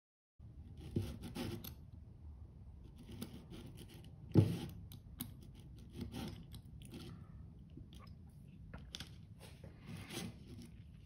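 Small open-ended spanner working the 7BA nuts on the steel cylinder cover of a Stuart beam engine model: light metallic clicks and scrapes as the nuts are turned, with one sharper knock about four seconds in.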